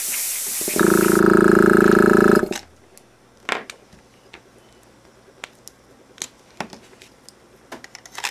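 Copic airbrush hissing as it sprays, joined about a second in by the desktop air compressor's motor running with a steady hum; both cut off together about two and a half seconds in, and then only faint clicks and taps of handling are heard.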